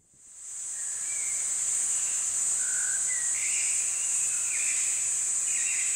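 Steady high-pitched insect chorus fading in over the first second, with a few short bird calls over it.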